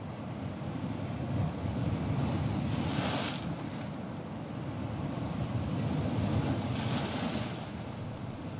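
Open-sea sound of wind and waves: a steady low wind rumble with waves washing past, a rushing hiss swelling up about every four seconds.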